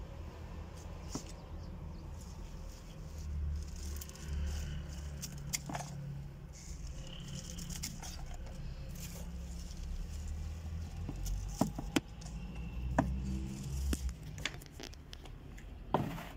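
Scattered clicks, taps and scrapes of small things being handled, over a steady low rumble, with a few sharper knocks in the last few seconds.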